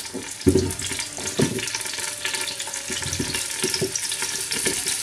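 Peeled potatoes dropped by hand into a cooking pot, landing with several separate thuds, over a steady crackling sizzle from the hot pot.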